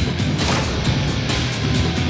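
Loud driving trailer music with a steady beat and sharp percussive hits, mixed with action sound effects.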